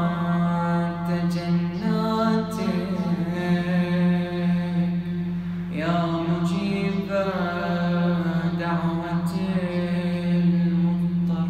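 A man chanting an Arabic Ramadan supplication in a drawn-out, melismatic style, with long held notes and slow pitch slides. A steady low tone holds beneath the voice.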